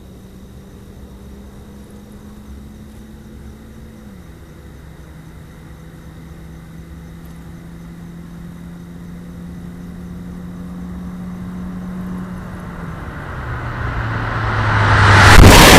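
Mazda CX-5 2.0-litre four-cylinder with a Corksport aftermarket exhaust and short ram intake, approaching under acceleration. The engine note drops twice as it shifts up, growing louder, and near the end the car passes the microphone in a loud rush.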